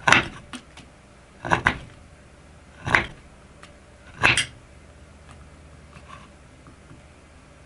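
Thin CPM T-15 steel knife blade cutting through a thick 15-amp electrical power cord: four short, sharp crunching snaps about a second and a half apart, the second one doubled, then only faint ticks.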